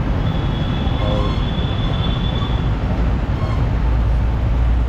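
Road traffic noise in a stopped jam: a steady low rumble with a thin, high, steady squeal that lasts about two and a half seconds and then stops.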